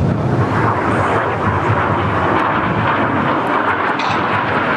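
BAE Hawk T1 jet of the Red Arrows flying a low pass during a double roll, a steady jet roar.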